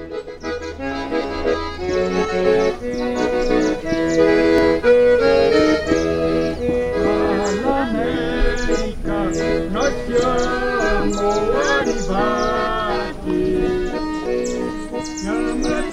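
Accordion music, with held chords and a melody. From about seven seconds in, higher sliding notes join in over it.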